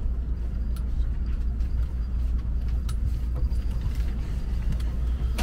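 Steady low rumble of a Tokaido Shinkansen train running at speed, heard inside the passenger car, with a few faint clicks.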